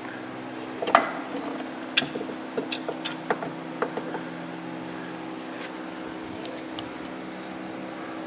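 Light metal clicks and clinks as the worm shaft and its tapered roller bearing are slid out of an Ammco 4000 brake lathe's gearbox housing, scattered through the first seven seconds, over a steady hum.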